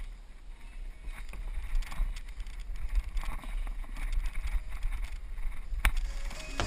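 Handling noise on a helmet-mounted action camera close to a climbing wall: a low, uneven rumble with scattered light knocks and scrapes, and one sharp click near the end.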